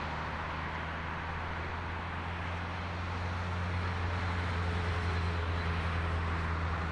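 Boeing 737-800's CFM56-7B jet engines running at taxi thrust as the airliner rolls slowly toward take-off. It is a steady low rumble under a hiss, growing a little louder about four seconds in.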